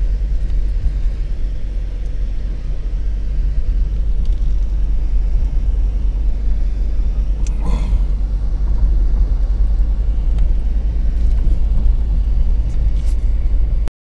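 Car driving over rough ground, heard from inside the cabin: a steady low engine and road rumble, with a brief knock about eight seconds in. The sound cuts off abruptly at the very end.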